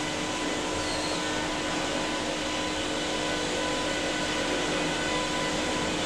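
Steady running noise of sawmill machinery: electric motors and roller conveyors humming, with several constant tones over an even rush of noise.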